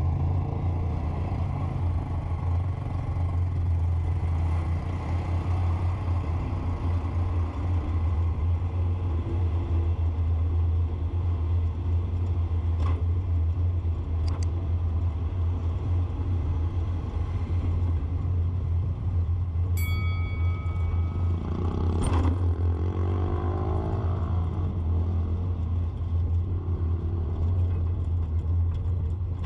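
Steady low rumble of a motor vehicle's engine. About 20 seconds in there is a short high beep, and shortly after an engine rises in pitch as a vehicle speeds up.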